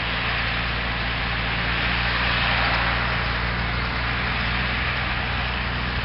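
John Deere 6810 tractor's six-cylinder diesel engine running steadily under load while pulling a mounted plough.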